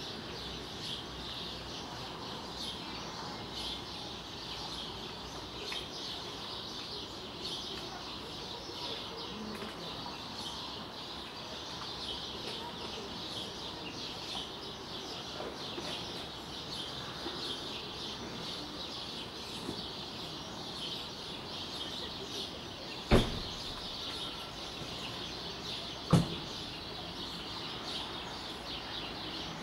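Many small birds chirping and singing continuously in a dense chorus of short high notes. Two sharp knocks land about three seconds apart near the end and are the loudest sounds.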